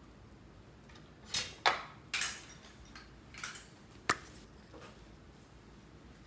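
Lipstick tubes being handled: a few sharp plastic clicks and short scrapes, bunched between about one and four seconds in.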